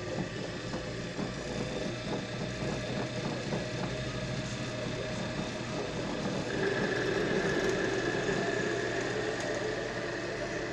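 Bench drill press motor running steadily, with a higher whine and a rise in level coming in about six and a half seconds in.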